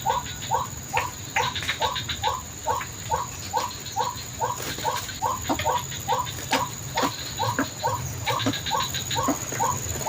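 White-breasted waterhen (ruak-ruak) calls repeated in a steady rhythm, nearly three a second, with a thin steady high tone running beneath.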